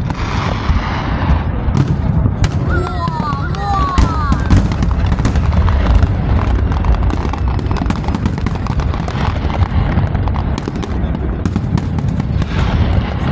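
A fireworks display going off in quick succession: a dense run of bangs and crackles over a steady low rumble, with onlookers' voices mixed in.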